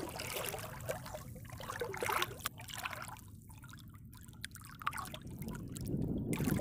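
Water trickling and sloshing around people wading neck-deep in a muddy pond, with a few small splashes in the first half.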